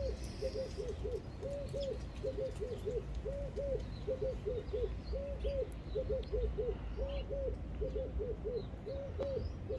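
A dove cooing over and over, a low phrase of three short notes and one longer note repeated about every two seconds at a steady pitch, with faint chirps of small birds behind it.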